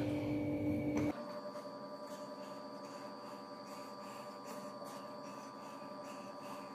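Faint steady electrical hum made of several steady tones, whose character changes abruptly about a second in. Only a few faint soft rustles sound over it.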